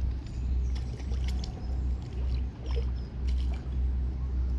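Wind buffeting the camera microphone in an uneven low rumble, with faint ticks and light splashes over it from a small tench being played at the surface.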